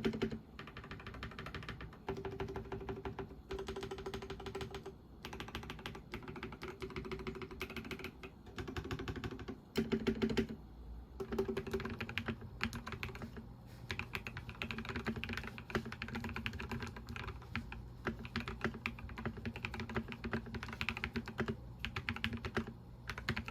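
Typing on a SPACE65 R2 mechanical keyboard with an FR4 plate and lubed Ca Phe Sua Da linear switches (polycarbonate housings, nylon stems): rapid keystrokes in runs of a few seconds, broken by brief pauses.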